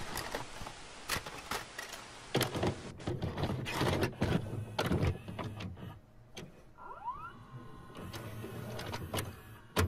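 VHS video deck mechanism taking a cassette and going to play: a run of sharp clicks and clunks over a low motor rumble, with hiss that fades over the first few seconds and a short rising whine about seven seconds in.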